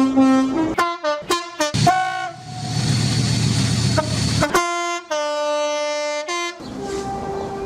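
British train two-tone horns sounding in quick succession: a run of short blasts stepping between two pitches, then about two seconds of a train's rumble, then two longer horn blasts. A fainter steady tone follows near the end.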